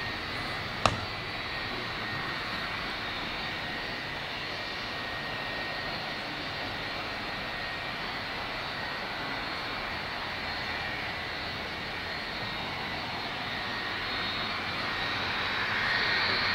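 Boeing 757-200 jet engines running at low power as the airliner moves along the runway: a steady rush with a high whine, growing louder over the last couple of seconds. A short sharp click comes about a second in.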